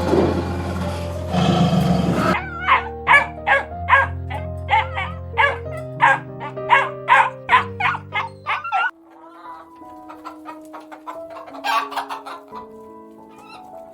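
Chickens clucking in quick short calls, about two to three a second, thinning out and getting quieter after about nine seconds, over soft piano music. The first two seconds hold a loud rushing noise that cuts off suddenly.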